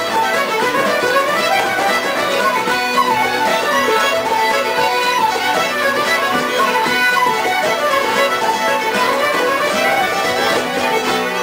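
Irish traditional session music: fiddle and wooden flute playing a fast tune's melody together over strummed guitar accompaniment.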